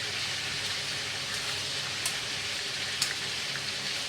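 Pieces of duck frying in hot oil in a pan, a steady sizzle with a couple of sharp pops about two and three seconds in.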